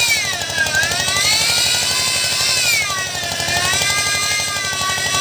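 Electric facing tool of an HDPE butt-fusion machine running, its rotating blades shaving the pipe ends: a motor whine whose pitch dips twice and recovers as the cutting load changes, over a fast buzzing chatter.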